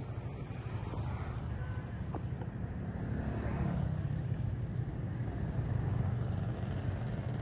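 Steady low rumble of outdoor background noise, swelling a little around the middle.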